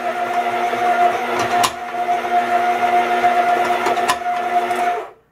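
Kenmore Elite 6-quart bowl-lift stand mixer running on cookie dough, a steady motor whine with a few sharp knocks from the bowl. The knocks go with the bowl working loose, which the owner counts against the Kenmore. It is switched off about five seconds in.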